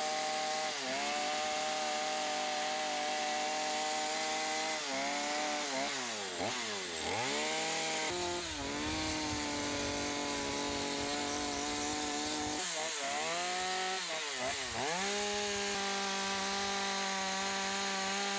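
Petrol chainsaw cutting into wood during sculpture carving, its engine running steadily at high revs. The engine pitch dips and recovers several times as the chain bites into the wood.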